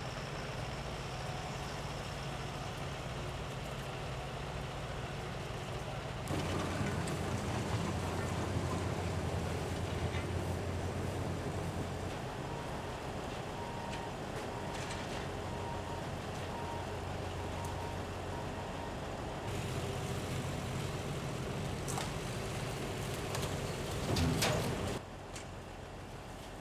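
Steady low hum of idling trucks and traffic, with a faint, evenly repeating beep in the middle stretch; the sound shifts abruptly several times.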